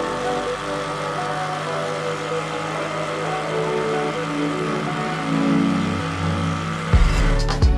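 Background music of held synth chords that change every half second or so, with a heavy low beat coming in near the end.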